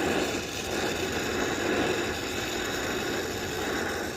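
Brazing torch flame burning with a steady rushing hiss while copper refrigerant line is brazed.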